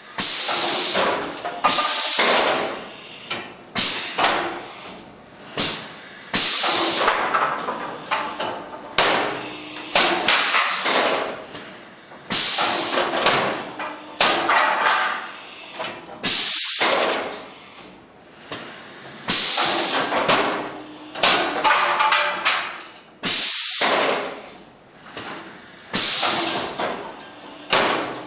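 Cameron Quick Rip rip saw cutting boards one after another. Every two seconds or so a sudden knock and hiss starts each cut, and the sound of the saw cutting through the board then fades away.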